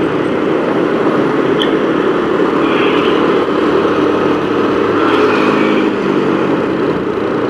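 Steady riding noise from a moving motorcycle: the bike's engine running under a continuous rush of wind and road noise, with surrounding traffic.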